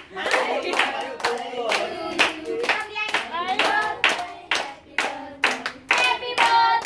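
A group of people clapping together in a steady beat while singing a birthday song around a lit cake.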